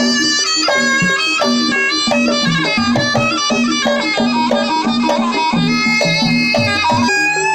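Traditional East Javanese jaranan music. A shrill, reedy wind instrument, the slompret, carries the melody in short notes over a steadily repeating low accompaniment.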